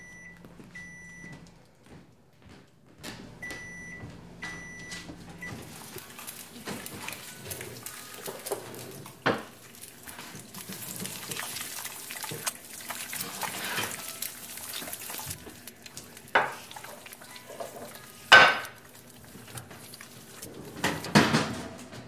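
Kitchen sounds: a few short high electronic beeps from a kitchen appliance, repeated in two groups over the first five seconds, then a steady hiss with the clatter and clink of pots, dishes and utensils being handled, the sharpest knocks near the end.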